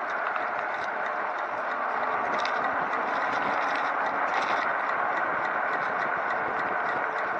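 Recumbent bicycle on the move: steady tyre-and-wind rush with a regular light ticking several times a second.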